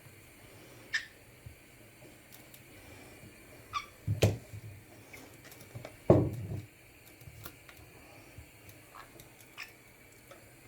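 A pet caique gives two short high chirps, about a second in and near four seconds. Two dull thumps, about two seconds apart, are the loudest sounds, with light taps and clicks between.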